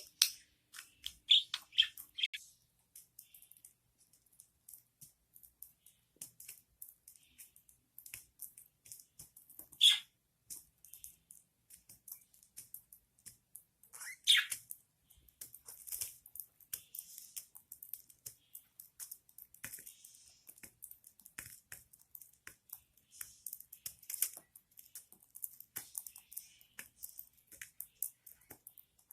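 Budgerigars in a nest with newly hatched chicks: a few short, sharp chirps, the loudest about ten seconds in and again about fourteen seconds in, over many soft scattered ticks and rustles.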